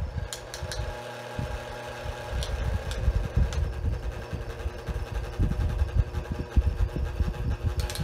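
Early-1960s Hoover table fan running on high through a capacitor decade box, its motor humming steadily with a whine above it, over an uneven low rumble and a few light clicks.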